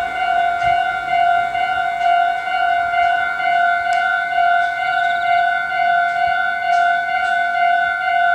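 Japanese level crossing's electronic warning bell ringing: a steady pitched ding-ding that pulses evenly over and over.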